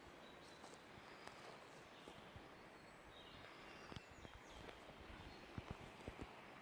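Quiet outdoor ambience with a faint bird calling a few short falling notes about halfway through, then a few soft footsteps on a trail near the end.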